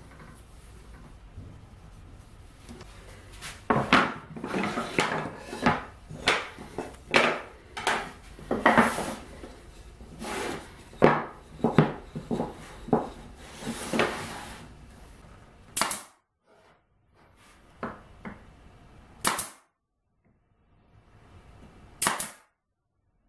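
Plywood pieces knocked and clattered against each other and on a workbench, a dense run of wooden knocks and clacks, followed by three single sharp clicks separated by silent gaps.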